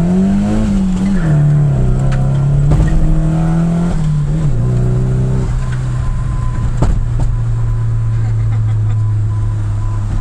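Turbocharged Nissan SR20 four-cylinder engine in a 240SX S13, its revs rising and falling in the first second and held raised, then dropping back about four and a half seconds in to a steady idle. A single sharp click about seven seconds in.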